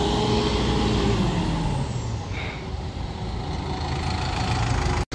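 UPS delivery truck's engine running as it drives up, dipping in the middle and growing louder near the end, with a thin high whine over the last second or so.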